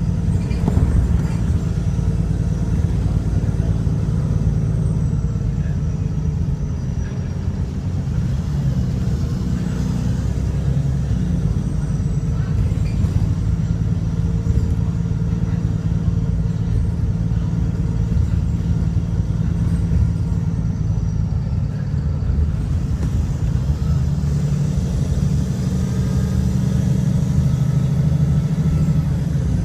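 Diesel engine and drivetrain of a VDL SB200 Wright Pulsar single-decker bus, heard from inside the cabin as the bus drives along: a steady low drone. The bus has a blown exhaust.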